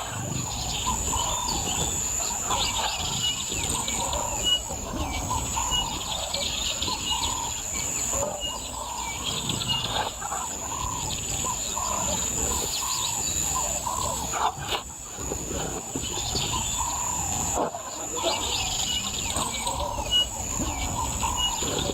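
Wild outdoor ambience: birds chirping repeatedly over a steady, high-pitched insect drone.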